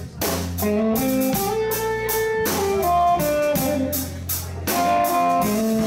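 Live blues band playing: a Telecaster-style electric guitar plays held single-note lines over electric bass and a drum kit keeping a steady beat, with no singing.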